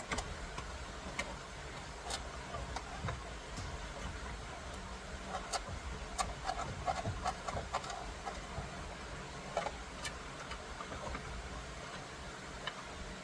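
Scattered light clicks and taps of small parts and screws being handled as the steering wheel's airbag retaining screws are started by hand, over a steady low hum.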